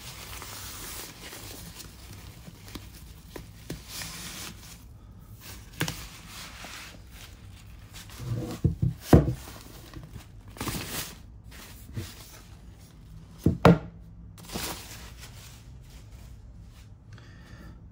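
Rustling and crinkling of a white paper wrapping sleeve as a network switch is slid out of it. Sharp knocks come about nine seconds in and again about fourteen seconds in, as the metal switch is handled and set on the desk.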